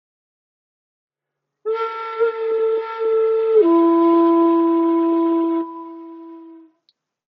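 Two long held notes on a wind instrument, the second a step lower, starting about a second and a half in; the second note breaks off after about two seconds, leaving a short fading ring.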